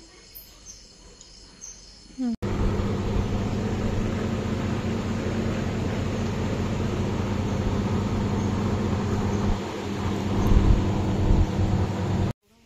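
Crickets chirping faintly, then an abrupt cut to a motor vehicle running, with a steady engine hum and road noise for about ten seconds. It cuts off suddenly near the end.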